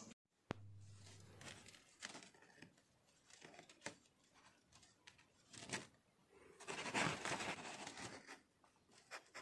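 Sheet of 200-mesh red copper wire mesh rustling and crackling as a gloved hand handles and flexes it: scattered crackles, then a longer, louder stretch of rustling toward the end.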